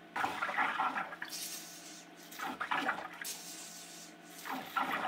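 Water forced by a hand syringe through the Tronxy Moore 1's feed tube and clay extruder, squirting from the nozzle into a plastic tub in several separate gushes as the extruder is rinsed clean.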